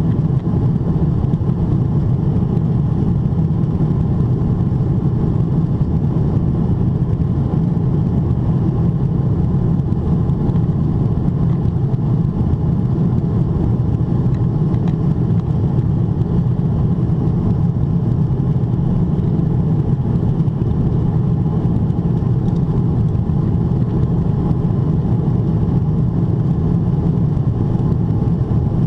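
Steady cabin noise inside a Boeing 777-300ER climbing: a low, even rumble from its GE90-115B turbofans at climb thrust, mixed with the rush of air past the fuselage.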